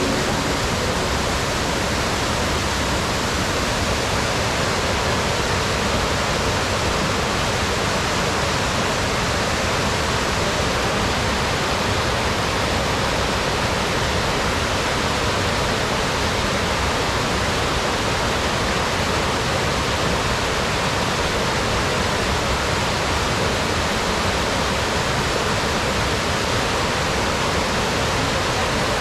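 Steady, loud rush of falling water from a waterfall, an unbroken even hiss with no changes.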